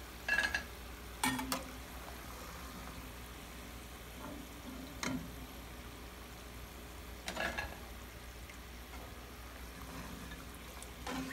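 Batches of matri frying in hot oil with a steady soft sizzle, while a metal slotted skimmer clinks and scrapes against the pan and plate several times as the golden-brown, fully cooked pieces are lifted out.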